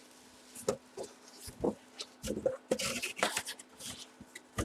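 Scattered light clicks and short rustles of objects being handled, over a faint steady hum.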